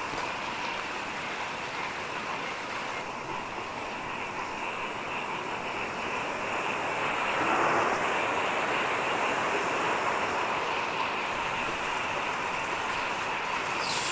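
Steady rush of a fast-flowing river, swelling slightly about halfway through.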